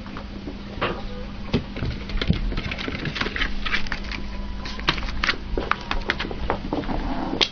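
Dogs scuffling in play: a run of irregular taps, clicks and scrapes, busiest in the middle, over a steady low hum.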